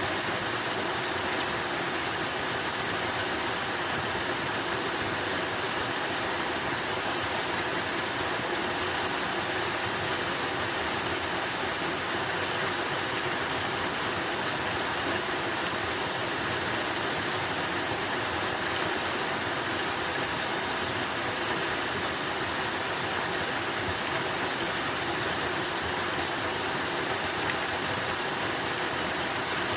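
Running water, a steady rush without breaks or changes.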